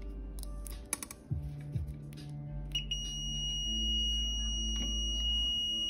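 Fluke 324 clamp meter's continuity beeper sounding one steady high-pitched tone, starting a little under three seconds in and lasting about three seconds, as the probes close the circuit through a cable: the wire has continuity and is good. Background music plays underneath, with a few handling clicks before the beep.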